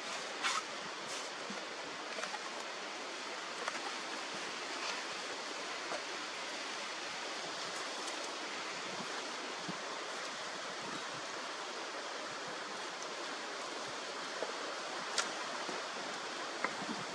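Steady, even hiss of wind in open bush, with a few faint scattered clicks and snaps.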